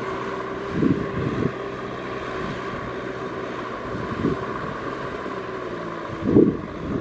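Tractor engine running steadily, with brief louder swells about a second in, once midway and again near the end.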